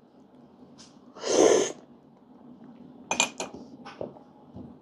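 A person slurping coffee to taste it during cupping: one loud, hissy slurp about half a second long, about a second in. A few light clicks follow.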